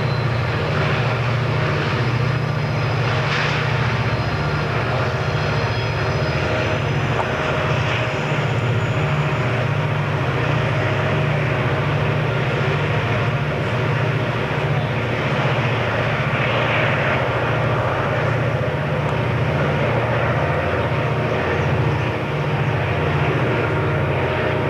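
Diesel-electric locomotive engines running under load as a train passes, a steady heavy low drone throughout. Faint high-pitched squealing tones sound in the first several seconds.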